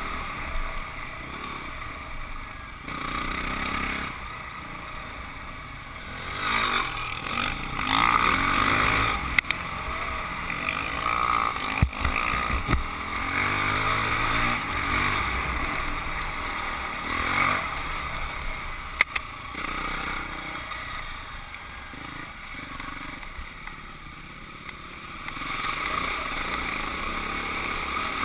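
Husqvarna 449 dirt bike's single-cylinder four-stroke engine running under load, swelling and falling as the throttle opens and closes, with a few sharp knocks along the way.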